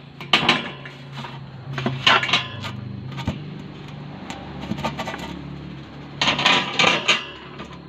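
Clatter and knocks of hard objects being handled, in three short spells, over a steady low hum.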